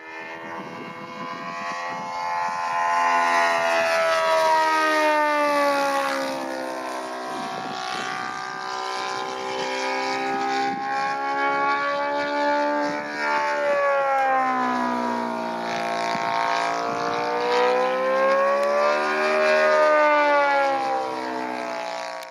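Saito FG-90R3 three-cylinder four-stroke radial petrol engine running in flight on a large scale model La-7 warbird. Its pitch slides down and back up several times as the plane flies its passes.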